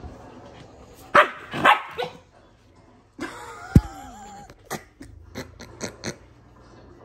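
Two Samoyeds play-fighting: a few loud barks about a second in, then growling with a sharp thump, then a quick run of short sharp clicks.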